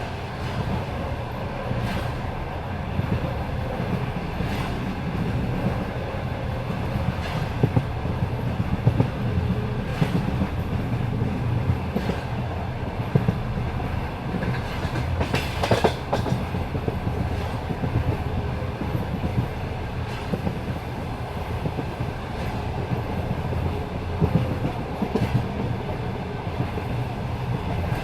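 Passenger train wheels clattering over rail joints at speed, over a steady low rumble. A click-clack comes every two to three seconds, with a louder, longer clatter about halfway through.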